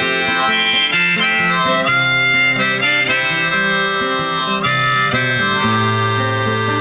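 Background music: an instrumental passage of harmonica over acoustic guitar, with sustained notes that change every second or so.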